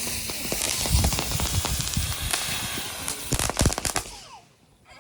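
Firecrackers crackling and popping in a rapid, irregular string with a few louder bangs, dying away a little after four seconds in.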